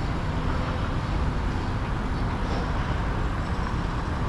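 Steady city traffic noise from cars and other vehicles on a busy through-road.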